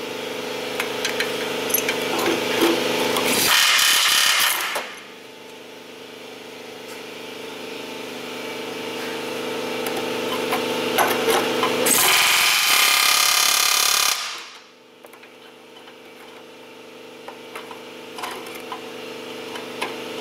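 Pneumatic die grinder running with a steady high whine while grinding at rusted exhaust flange hardware close to a stud. The grinder gets harsh and loud twice: briefly about three and a half seconds in, and for about two seconds from twelve seconds in.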